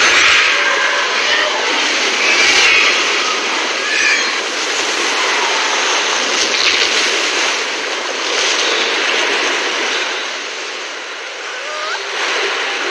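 Dense, steady rushing of a river flood wave surging and crashing down over riders, a film sound effect.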